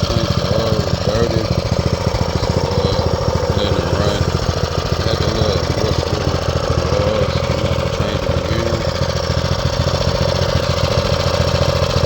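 Small single-cylinder 5.5 horsepower mini bike engine running steadily at a constant speed.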